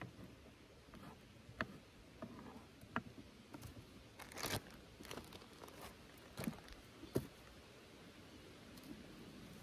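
Faint scattered clicks and light taps of food and utensils being handled at a cutting board, with a short crinkling rustle about four and a half seconds in.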